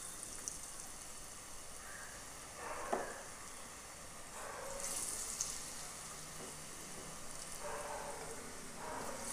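Batter-coated potato balls deep-frying in hot oil in a small saucepan, a steady sizzle of bubbling oil. A brief clunk comes about three seconds in, and the sizzle swells louder about five seconds in.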